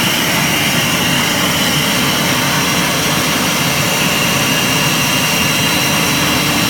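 1325 CNC wood router running: a steady, loud machine noise with a constant high whine. A lower steady hum joins about four seconds in.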